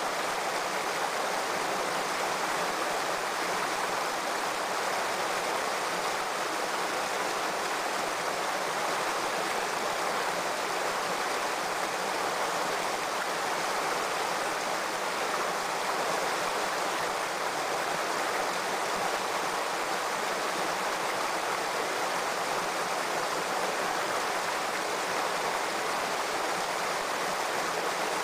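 Shallow stream water running steadily over rocks, an even rushing with no breaks.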